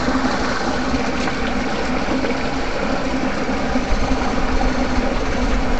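Electric fishing rig buzzing steadily while its electrode rods are held in the water, an even mechanical hum with no pause.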